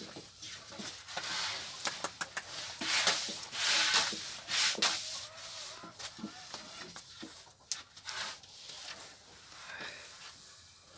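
Long thin wooden rolling pins (oklava) rolling and swishing over floury yufka dough sheets on round wooden boards, with light knocks of wood on wood. The swishes are loudest in the first five seconds and quieter after.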